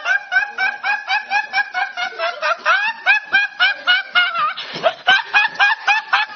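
A teenage boy laughing uncontrollably in a fast, unbroken string of short, high, squealing bursts, each rising in pitch, about five a second.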